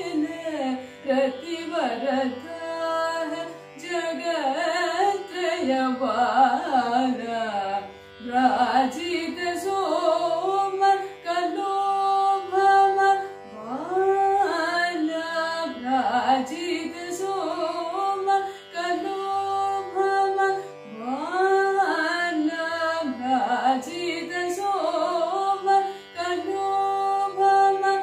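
A woman singing Carnatic music solo, in phrases full of sliding, oscillating ornamented notes (gamakas), over a steady drone.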